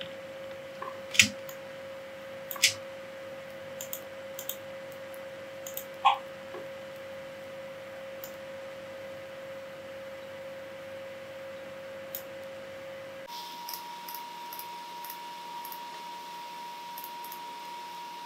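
Computer mouse clicks, a handful of sharp ones in the first six seconds and a few fainter ones later. Under them runs a steady electronic tone that jumps to a higher pitch about 13 seconds in.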